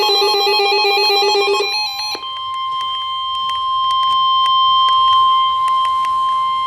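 Emergency Alert System broadcast tones: rapidly alternating electronic beeps for the first couple of seconds, then the steady single-pitch weather-radio warning alarm tone, with faint crackles of static through it.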